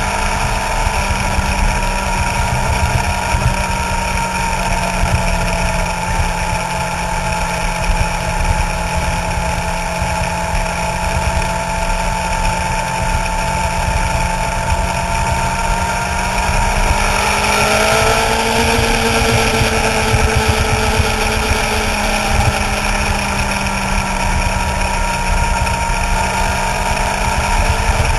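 Suzuki GSX-R sportbike's inline-four engine running at a steady cruising speed, heard close up from the bike itself over a constant rush of noise. About seventeen seconds in, the engine pitch rises a little, a light roll-on of throttle, then holds steady.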